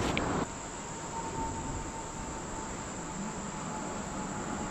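Fast-flowing creek water rushing steadily, with a thin, steady, high insect trill over it and a faint steady mid-pitched tone. A short burst of noise comes at the very start.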